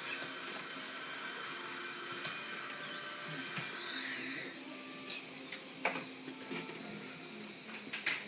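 Dental drill running with a high steady whine, its pitch dipping briefly a couple of times as it works on a tooth, then falling away about four seconds in. A few sharp clicks follow.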